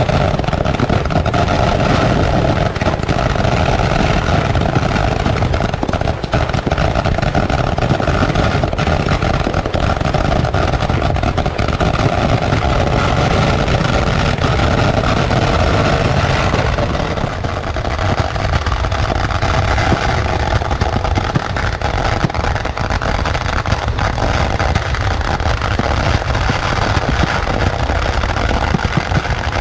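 Kerala temple-festival fireworks (vedikkettu) going off in a dense, unbroken barrage, the firecracker blasts running together into a continuous roar.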